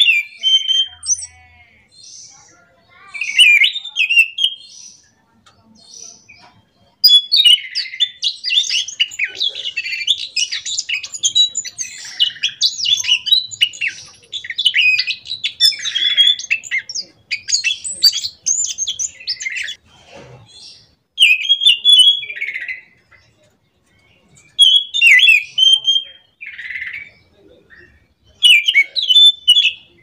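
Caged anis macan thrush singing loudly in short, rapid, varied phrases. From about seven to twenty seconds in it runs into one long unbroken stretch of song, then returns to short phrases.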